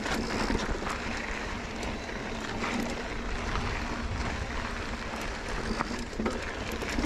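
Mountain bike riding up a dirt trail: the tyres run on loose dirt and gravel, with scattered clicks and rattles from the bike, over a steady low wind rumble on the camera microphone.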